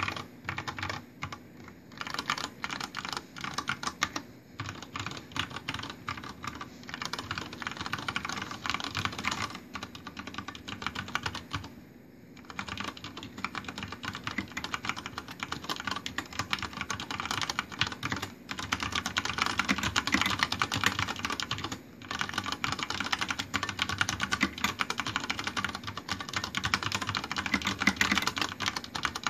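Continuous fast typing on a Deck Francium Pro mechanical keyboard with Cherry MX Brown switches and Vortex PBT keycaps: a dense stream of key clacks. It breaks off briefly about 4, 12, 18 and 22 seconds in.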